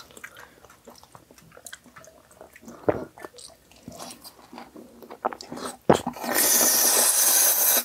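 Close-miked chewing of a piece of sauced fried chicken topped with mayonnaise: soft, wet mouth clicks and smacks. About six seconds in, a loud steady hiss starts and runs for under two seconds, then cuts off abruptly.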